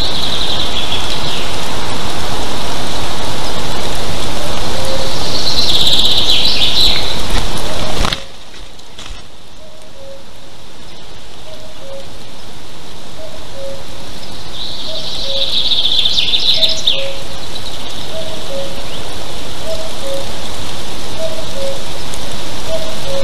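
Outdoor nest-cam sound: a bird sings a short, high, chirpy phrase three times, roughly every nine seconds, over a loud steady rushing hiss that drops away suddenly about a third of the way in and then slowly builds again. A faint two-note call repeats steadily in the background once the hiss drops.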